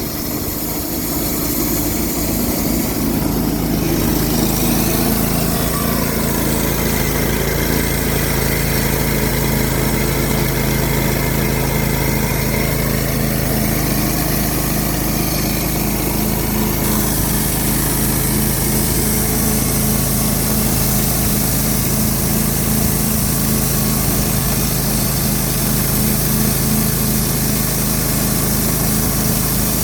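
Wood-Mizer LT15 portable band sawmill running: its small engine drones steadily while the band blade saws through a log.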